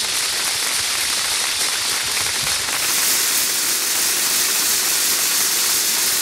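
Loud, steady static hiss, heaviest in the treble, growing a little stronger about three seconds in.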